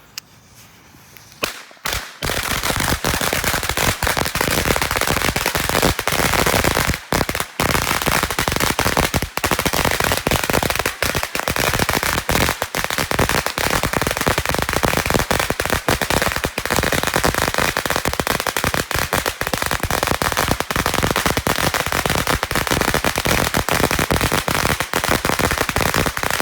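A 1,000-count string of firecrackers going off: a couple of sharp pops about two seconds in, then a rapid, continuous crackle of bangs for over twenty seconds that stops abruptly near the end.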